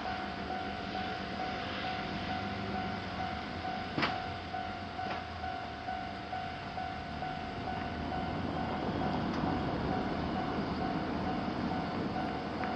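Japanese level-crossing warning bell ringing with a steady tone, while an electric train rumbles over the tracks, louder in the second half. A sharp click comes about four seconds in.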